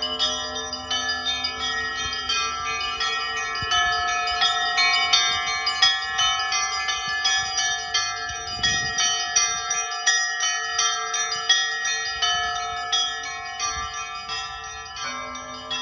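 Russian Orthodox church bells rung in a continuous festive peal: quick, rhythmic strikes of the smaller bells over the long, sustained ringing of deeper bells.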